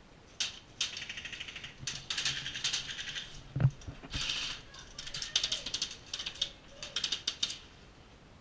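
Airsoft guns firing in several short bursts of rapid automatic fire, a fast rattling run of clicks in each burst, with a single dull thump in the middle.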